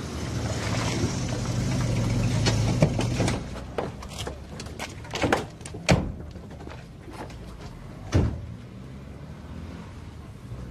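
A car engine running steadily, then it dies away and car doors open and shut: a few sharp clunks about five to six seconds in and a heavier slam about eight seconds in.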